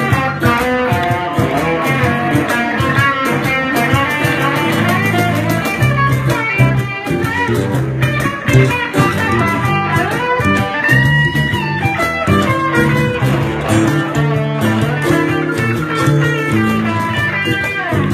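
Small live band of electric and acoustic guitars playing a song.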